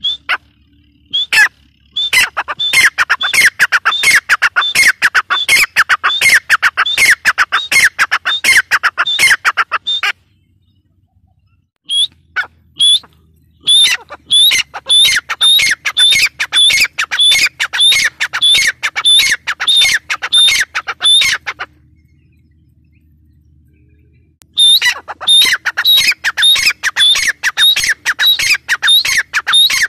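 Grey francolin (teetar) calling close by: long runs of loud, rapid repeated notes, about four a second, each note sliding down in pitch. The calling breaks off twice for a couple of seconds, then starts up again.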